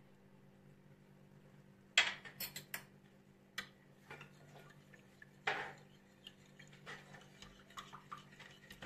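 Metal spoon stirring milk and Turkish coffee in a small ceramic bowl, clinking against the bowl's sides. A few sharp clinks start about two seconds in, followed by lighter, irregular taps.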